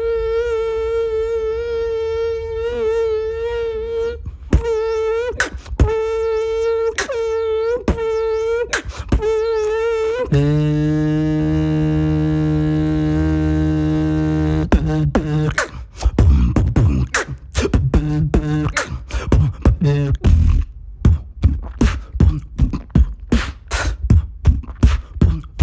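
Beatboxer's mouth imitations of insects. First a fly's buzz: a high, wavering hum broken off several times. About ten seconds in comes a lower, steadier bee buzz, then a fast run of short clicks and pops through the last third.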